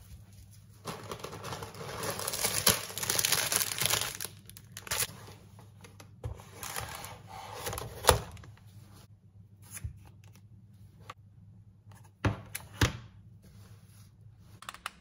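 Rustling and crinkling of a shopping bag and plastic-wrapped groceries as they are unpacked, with a few sharp knocks as items are set down on a wooden counter.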